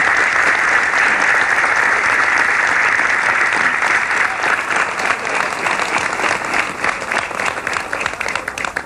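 Large crowd applauding: dense clapping at first, thinning into more separate claps over the second half, then cutting off abruptly at the end.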